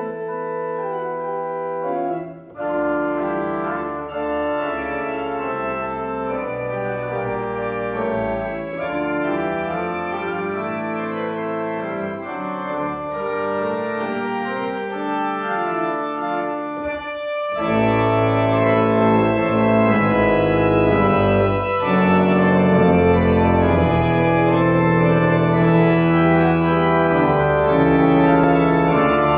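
Church organ playing a fugue, several lines of sustained notes moving against each other. A short pause comes about two seconds in; about halfway through, after a brief break, it turns louder and fuller with a stronger bass line.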